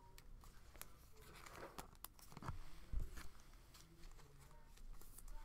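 Trading cards and foil card-pack wrappers being handled, with faint crinkling and scattered light clicks and taps, the loudest about three seconds in.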